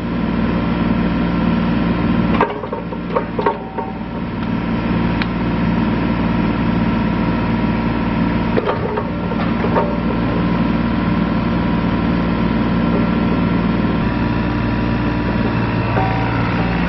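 A 2012 John Deere 27D mini excavator's diesel engine running steadily. A few sharp knocks come a couple of seconds in and again about halfway through.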